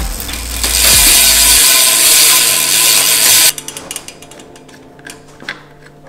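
Bicycle rear hub freehub ratcheting as the rear wheel spins on a workstand. Quick clicking gives way about a second in to a loud, fast buzz that cuts off suddenly about three and a half seconds in. Slower, softer ticks follow.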